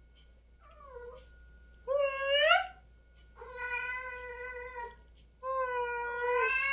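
Domestic cat meowing four times: a faint short mew about a second in, then three loud, drawn-out meows, the middle one long and level.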